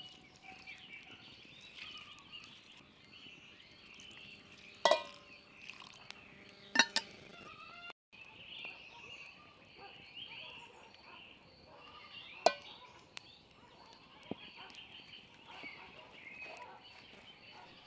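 Birds chirping continuously in the background, with three sharp clinks about five, seven and twelve seconds in as a glass jug and glass jar are handled and set down on a wooden stump.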